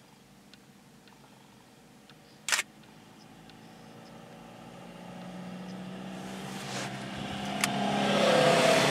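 A single sharp click, then a motor vehicle's engine and tyre noise approaching, growing steadily louder over the last few seconds.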